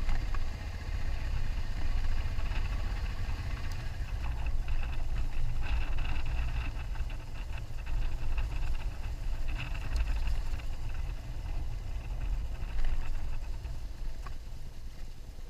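A 2001 BMW F650GS Dakar's single-cylinder engine running as the motorcycle rides along, under steady wind rumble on the bike-mounted microphone.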